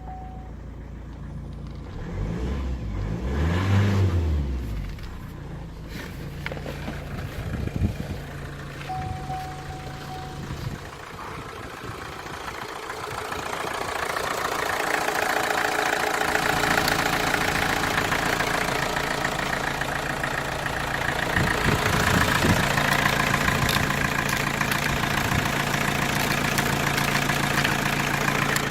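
Opel A17DTR 1.7-litre four-cylinder turbodiesel running: idling, revved up once and settling back a few seconds in, then idling again, growing louder from about halfway through.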